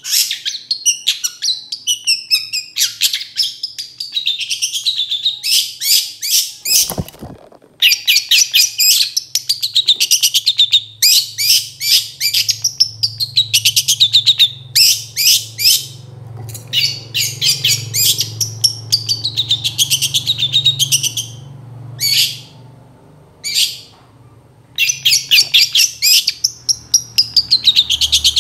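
Long-tailed shrike (cendet) singing loudly: rapid runs of sharp, chattering notes in repeated bursts with short pauses between them. A faint low hum sits underneath from about eight seconds in.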